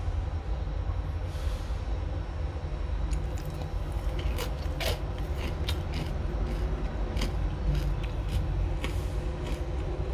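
Steady low background rumble with scattered light clicks and taps.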